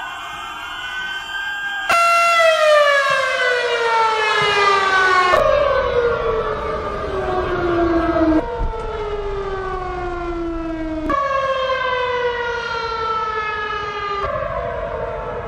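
Sirens sounding the 09:05 moment of silence for Atatürk: loud pitched wails that fall in pitch over about three seconds, break off and start again high, about every three seconds, with several sirens overlapping at first.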